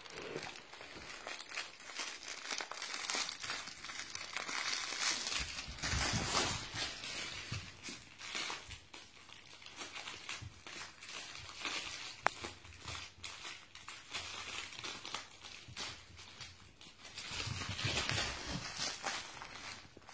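Red plush crinkle toy being chewed, shaken and dragged by a puppy: irregular crinkling and rustling of the crackly material inside. It swells to its loudest a few seconds in and again near the end, with one sharp click about midway.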